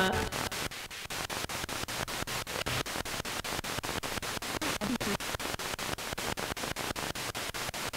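Radio static from a spirit box sweeping through radio stations, the hiss chopped into rapid, evenly spaced pulses several times a second, with a brief faint fragment of sound caught about five seconds in.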